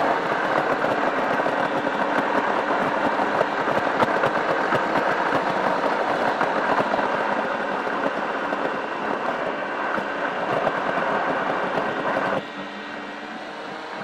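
BMW i3 rolling downhill, heard from inside the cabin: steady road and tyre noise that drops abruptly to a lower level about twelve seconds in.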